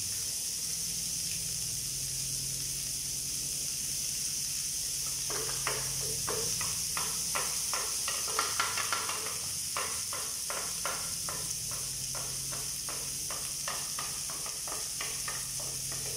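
Wooden spatula scraping blended pumpkin soup out of a plastic blender jug: a quick run of scrapes and taps beginning about five seconds in and easing off near the end, over a steady hiss.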